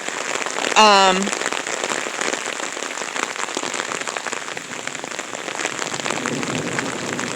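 Heavy rain pouring steadily, with a short voice sound falling in pitch about a second in.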